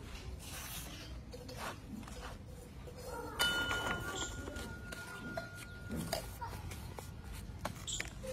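Hands working crumbly powder in a steel basin and picking up empty paper firecracker tubes, giving soft rustling and light clicks. About three seconds in there is a knock followed by a steady ring for about two seconds.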